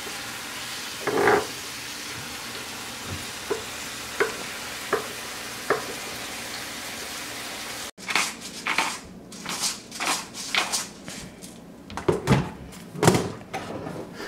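Ribeye steak sizzling steadily in a frying pan, with a few light taps. About eight seconds in, the sizzle cuts off abruptly and irregular clicks and knocks follow as seasoning is added over diced potatoes on a cutting board.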